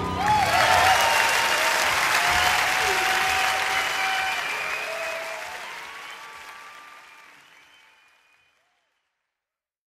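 Live concert audience applauding and cheering at the end of a song, fading out gradually to silence about eight seconds in.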